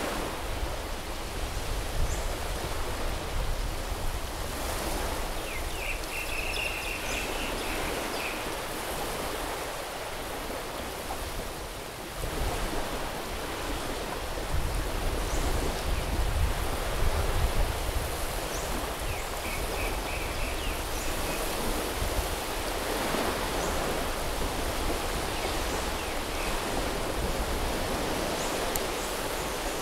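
Sea waves washing onto a tropical beach, a steady surf wash that swells louder about halfway through.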